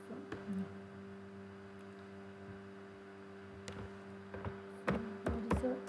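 Steady low electrical hum. Over it come a few sharp clicks, with a cluster of mouse clicks and computer keyboard keystrokes near the end.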